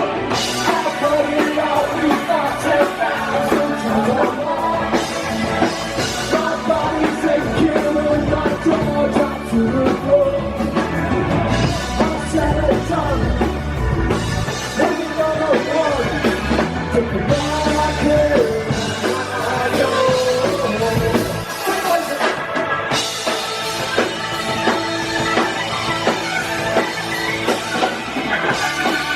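Live rock band playing loudly: drum kit, bass and electric guitars, with a wavering lead melody over the top.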